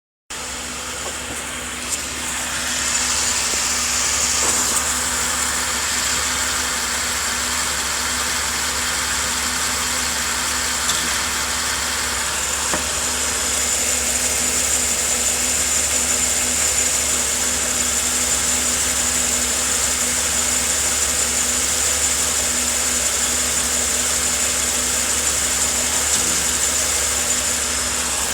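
Ford Taurus running steadily with a high whine over a low hum, its four-speed automatic transmission making an odd noise twice, about 9 and 25 seconds in. The owner does not know the cause; the noise has been there as long as he can remember.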